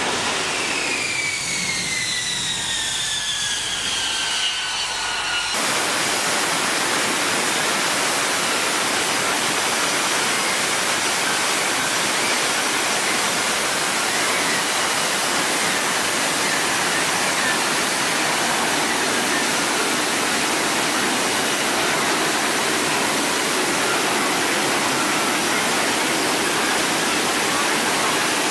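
F-35B jet engine whining down after a vertical landing, its whistle falling steadily in pitch. About five and a half seconds in it gives way suddenly to the loud, steady roar of an F-35B hovering close overhead on its lift fan and swivelled exhaust.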